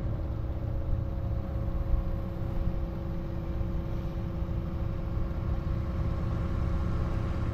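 Sailboat's engine running steadily while motoring under way: an even hum with a low rumble underneath, with no change in speed.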